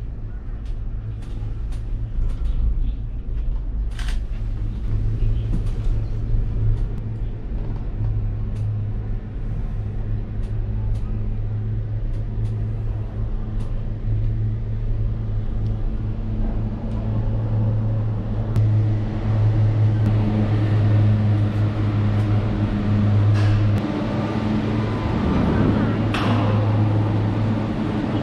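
Ngong Ping 360 cable car gondola running along its cable, heard from inside the cabin as a steady low hum and rumble with a few faint clicks. The sound grows louder and fuller in the second half, with a brief swell near the end.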